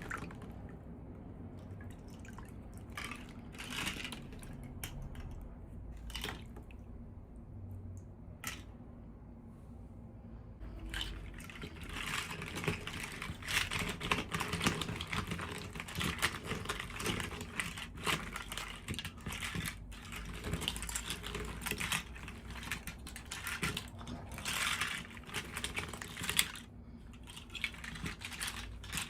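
Unboxing handling sounds of toy packaging: scattered small clicks and taps, then from about eleven seconds in a dense run of rustling and crinkling that stops briefly near the end.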